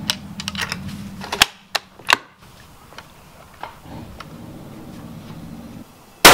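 Bolt-action hunting rifle being loaded and fired: a run of sharp metallic clicks from the cartridges and bolt in the first two seconds, then near the end a single loud rifle shot that echoes under the covered firing line.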